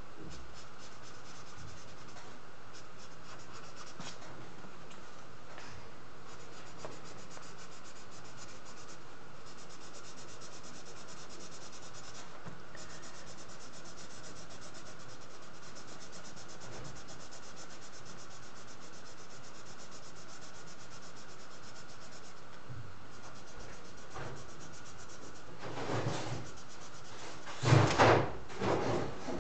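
Felt-tip marker rubbing on paper in continuous back-and-forth colouring strokes. A few louder knocks and rustles come near the end.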